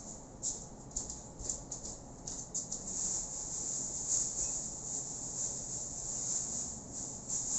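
A few light clicks and knocks, then from about three seconds in a continuous, uneven rustling hiss of kitchen clean-up handling.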